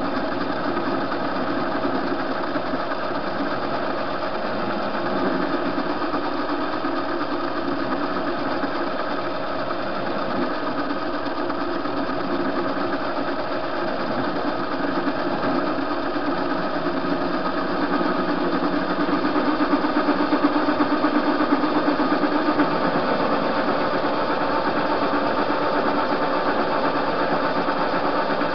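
TV-16 metal lathe running steadily while its cutting tool turns down a metal shaft, a constant machine hum with several steady tones, a little louder for a few seconds past the middle.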